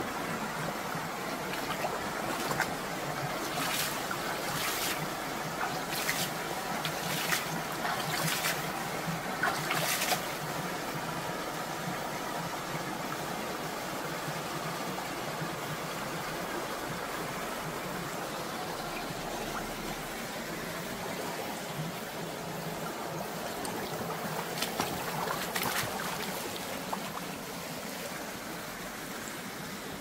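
Clear mountain stream running and trickling over rocks: a steady rush of water. Several short sharp sounds stand out over the first ten seconds, and two more come near the end.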